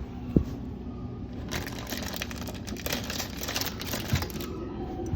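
Plastic instant ramen packet being torn open and crinkled: a single knock early on, then a dense run of crackling from about a second and a half in.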